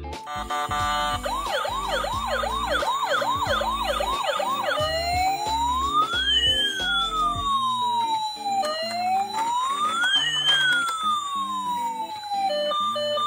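Electronic siren from a battery-powered toy ambulance: a fast warbling yelp for a few seconds, then two slow rising-and-falling wails, switching to a steady beeping pattern near the end.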